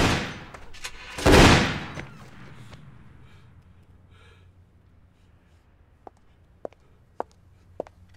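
Pistol shots: one at the very start and a louder one about a second and a half in, each dying away over about a second. Near the end comes a run of short, sharp clicks about every half second.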